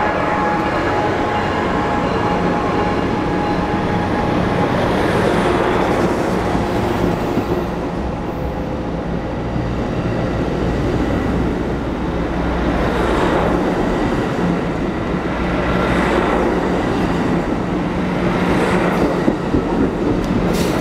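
Amtrak Pacific Surfliner bilevel passenger cars rolling past at close range: a steady rumble of wheels on rail with a few clacks over rail joints.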